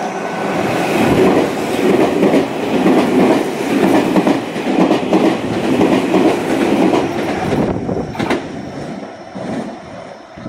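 Meitetsu electric train running through the station at speed without stopping: the rumble of its wheels on the rails swells within the first second, pulses steadily, and dies away from about eight seconds in, with a few sharp clacks near the end.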